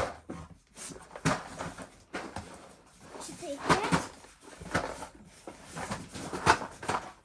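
Boxes of screws being stacked onto shelves: a handful of knocks and thuds at irregular intervals, with a few bits of quiet talk.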